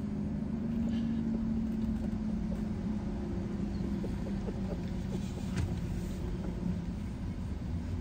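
Car engine idling with a steady low hum, heard from inside the cabin.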